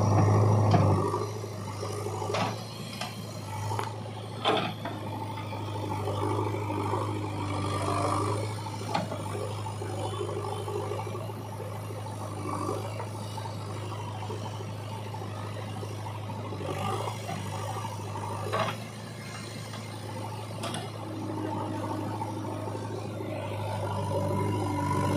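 JCB 3DX backhoe loader's diesel engine running steadily under load as the backhoe arm digs and swings mud, with a shifting mid-pitched machine whine over the engine drone and a few sharp knocks from the bucket and clods of mud.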